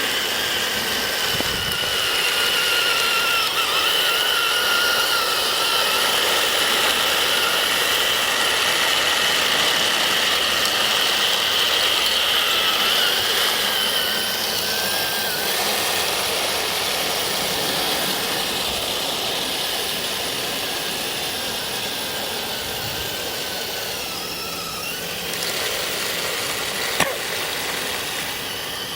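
Electric drive motors and gearboxes of an RC M26 tank with metal tracks whining steadily while it drives, the pitch of the whine wavering as the load changes. The whine weakens over the second half, and there is a sharp click near the end.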